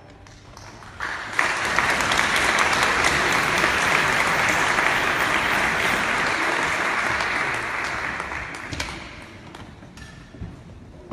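Audience applauding, starting suddenly about a second in, holding steady, then dying away near the end.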